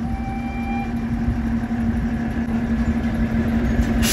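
Ikawa Line DD20 diesel locomotive idling at the platform: a steady low engine rumble with a constant hum.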